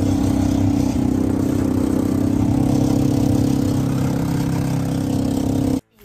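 A motor vehicle's engine running loudly at a steady speed, cutting off suddenly near the end.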